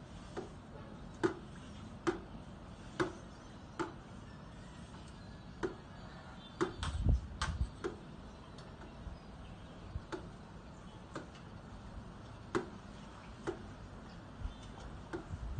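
Sharp hollow clicks, roughly one a second and not quite regular, with a heavier knock about seven seconds in, from a pool-cleaning pole and its head being worked back and forth along the pool.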